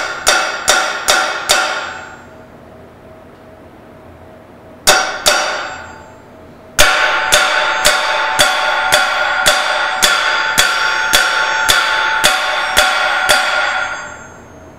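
Hammer driving a cold chisel into a rusted seam between two tightly butted metal parts of a KUKA robot's housing: sharp metal-on-metal strikes that ring. A quick run of about five blows, two more about five seconds in, then a steady string of about thirteen blows, roughly two a second, whose ringing runs together until they stop near the end.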